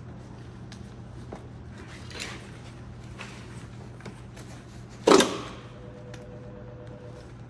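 Scattered clicks and rustles of straps, buckles and gear as firefighters secure a victim in a rescue basket, over a steady low hum. About five seconds in comes one sharp metallic clank that rings on for about two seconds.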